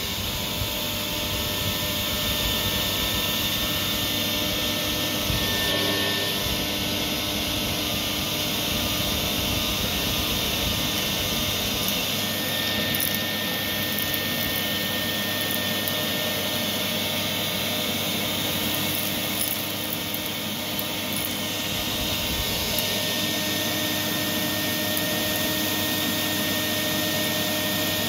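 Vacuum cleaner running steadily, its metal wand sucking up thick dust and loose dirt.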